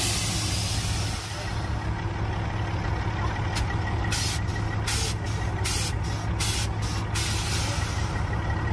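A truck engine running steadily with a deep hum, and a quick string of short air hisses in the middle.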